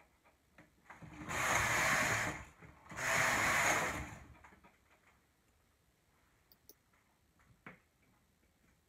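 Knitting machine carriage pushed across the needle bed to knit plain rows: two passes of about a second each, a swishing rattle of the carriage running over the needles. A few faint clicks follow near the end.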